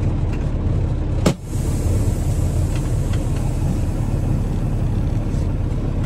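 Semi-truck diesel engine idling steadily, a low rumble heard from inside the cab, with a short sharp click and brief drop in sound about a second in.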